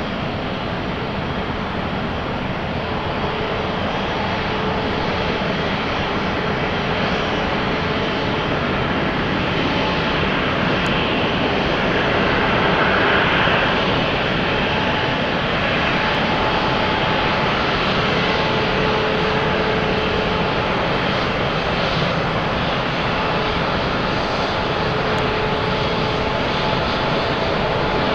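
Passenger aircraft's engines running: a steady rushing noise with a faint hum through it, swelling a little to its loudest about halfway through.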